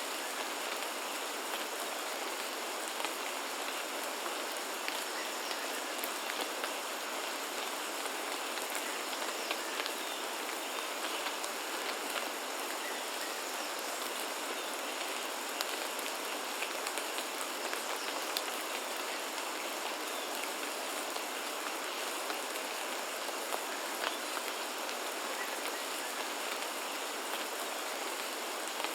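Steady rain falling on foliage, an even hiss dotted with many small drop ticks, with a thin steady high-pitched tone underneath.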